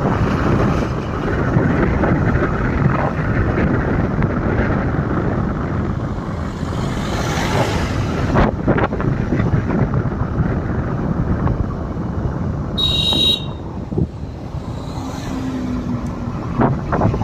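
Steady road and wind noise of a moving vehicle. A short high-pitched tone sounds about three-quarters of the way through.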